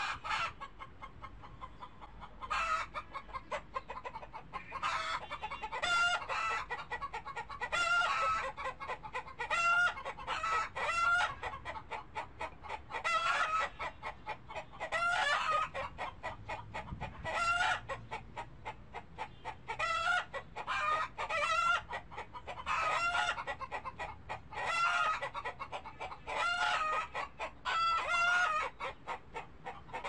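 Chickens clucking in a long run of short calls, about one a second, some in quick pairs.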